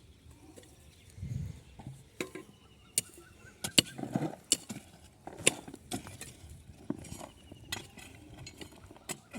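Hand tools striking on a building site: irregular sharp clinks and knocks, about a dozen, the loudest near the middle, after a low thud about a second in.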